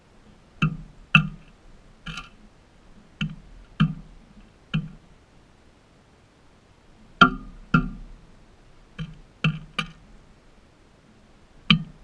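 Crested pigeon pecking at sunflower seeds in a plastic feeder dish close to the microphone: about a dozen sharp taps at uneven intervals, some in quick pairs, each with a brief ring.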